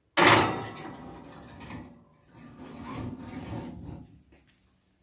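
Glass baking dish of ribs going onto the wire rack of a countertop oven: a sudden clatter just after the start, then glass and metal scraping as the dish is slid in on the rack.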